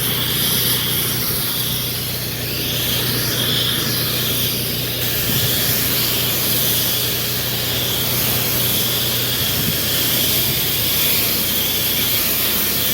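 Pressure washer wand steadily spraying house wash mix onto a wooden deck at low pressure (downstreaming), a continuous hiss of spray over the steady hum of the pressure washer's engine.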